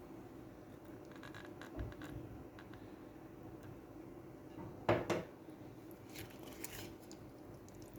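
Chicken pieces being mixed by hand through an oil and spice marinade in a bowl: faint squelching and scraping, with a sharper clatter about five seconds in.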